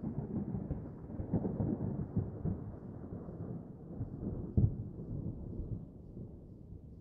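Thunder rumbling and slowly fading away, with one brief louder crack about four and a half seconds in.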